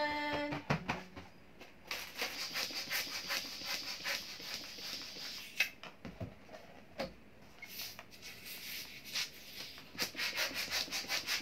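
Latex balloons being inflated with a small hand pump and handled, giving rapid rubbing and scraping noise in two stretches: one from about two to five seconds in, and another near the end. A short voice-like call at the very start.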